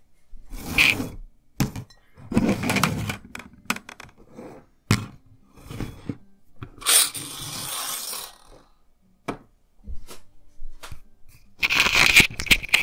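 A run of separate knocks, clinks and scrapes of a glass and tableware being handled on a hard tabletop, with a brief hissing noise about seven seconds in and a louder cluster of clatter near the end.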